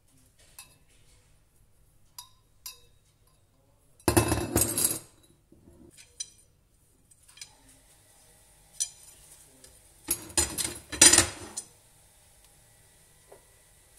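Metal tubes and rods being set down on a hard table, clanking and clinking with a metallic ring. The sound comes in two loud clusters about four and ten seconds in, with a few lighter single clinks between.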